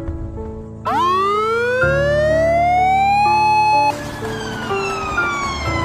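Emergency vehicle siren wailing over background music. About a second in it rises slowly in pitch, holds for a moment, then falls slowly.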